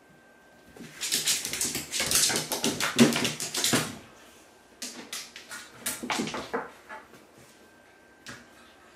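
Cats scrambling after a small glittery toy ball on a hard floor: fast clattering of paws and claws with the ball skittering. It comes in two flurries, the first about three seconds long and the second about two, then a single tap near the end.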